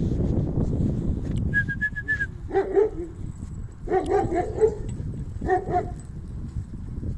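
Playing dogs giving short whining yelps in three quick bouts, about two and a half, four and five and a half seconds in.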